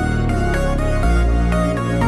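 Electronic background music with a heavy bass and a steady beat.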